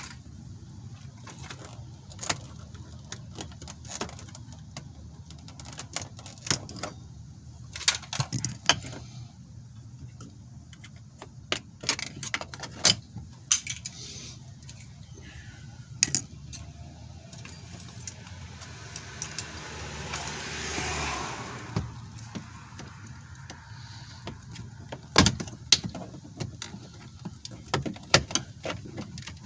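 Scattered sharp clicks and taps of a flathead screwdriver prying plastic trim pieces off an SUV's interior door panel. A stretch of noise swells and fades for a few seconds about two-thirds of the way in.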